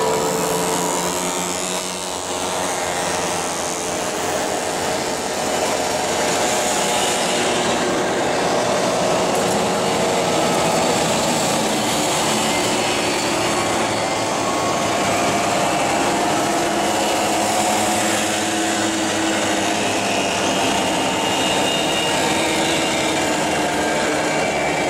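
A large pack of vintage two-stroke mopeds riding past, many small engines buzzing at once in a steady, dense mix of overlapping engine notes.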